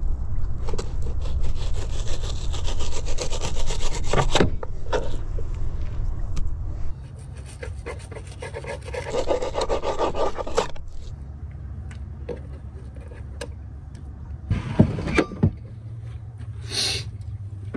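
Fillet knife sawing and scraping on a cutting board while trout is filleted, in quick rapid strokes for the first few seconds and again about halfway through, with a few sharp knocks near the end. A steady low rumble runs underneath.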